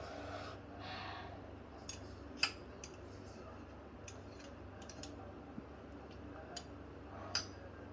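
Scattered light clicks and clinks of kitchen utensils and containers being handled, about ten short ticks spread unevenly, with a soft rustle in the first second.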